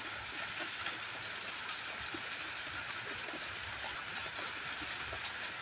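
Rain falling steadily: an even hiss with scattered small ticks of drops.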